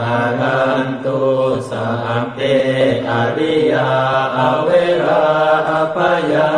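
A Buddhist monk chanting Pali verses in a steady, near-monotone male voice, the syllables running on without pause.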